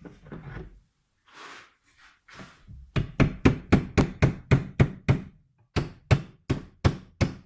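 Hammer blows struck in quick succession, about four a second, in two runs with a short pause between, after a few softer handling noises.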